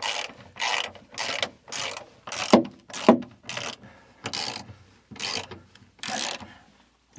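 Hand ratchet wrench turning a lag bolt into wood in repeated strokes, about two a second, each stroke a short burst of ratcheting and rasping. About two and a half and three seconds in come two sharper, louder creaks.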